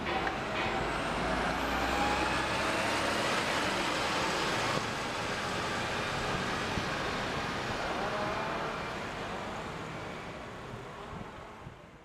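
Street traffic with a large truck driving past close by, its engine and tyre noise steady, then dying away near the end.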